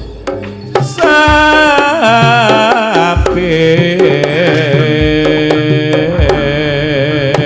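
Live jaranan music: hand-drum strokes under a wavering, ornamented melody line, played loud.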